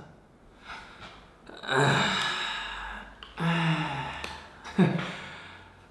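A man's breathy sighs and short wordless vocal sounds, three separate ones, loudest a little under two seconds in.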